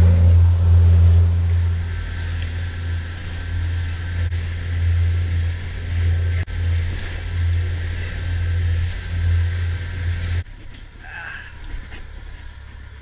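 Crew boat engines running hard at cruising speed: a loud, steady low drone with water rushing along the hull. About ten seconds in, the drone drops away suddenly, leaving a much quieter background of wind and water.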